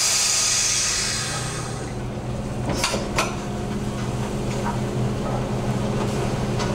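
Working fishing-boat deck noise: the boat's machinery hums steadily and low, while a loud hiss of water spray fades out over the first two seconds. About three seconds in there are two sharp knocks half a second apart, gear knocking against the hydraulic hauler or rail.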